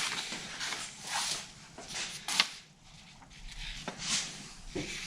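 A few scattered light knocks and clicks, with the sharpest about halfway through: hand tools and engine parts being handled.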